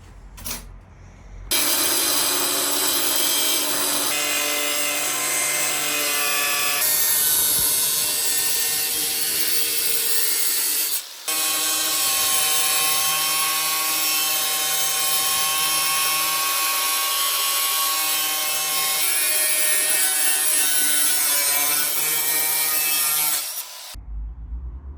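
A power tool cutting through a motorcycle's metal rear fender, running as a loud, high-pitched whine with a hiss. It starts about a second and a half in, breaks off for a moment near the middle, and stops shortly before the end.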